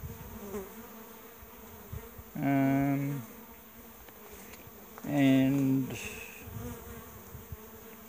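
Honey bees buzzing around the entrance of a small nuc hive, with two loud buzzes of steady pitch, each under a second long, about two and a half and five seconds in, as bees fly close past the microphone.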